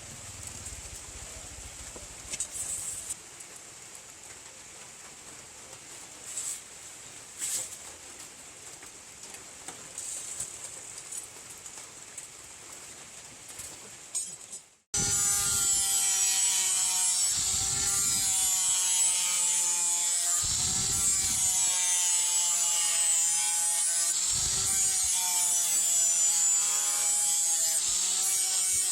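Faint workshop sounds with a few scattered taps, then an abrupt cut halfway through to a loud electric power tool motor running steadily, its pitch dipping several times as it is pressed into the work.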